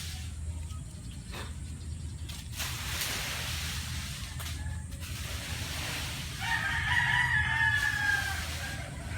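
A rooster crows once, a drawn-out call that falls slightly at the end, about two thirds of the way through. A steady low hum runs underneath.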